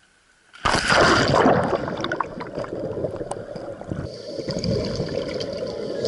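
A scuba diver's backward-roll entry off a boat's gunwale: a sudden loud splash about half a second in, then a rushing, bubbling noise of water and exhaled air bubbles heard underwater.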